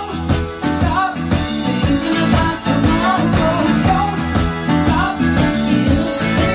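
Music: a song with guitar and singing over a steady beat.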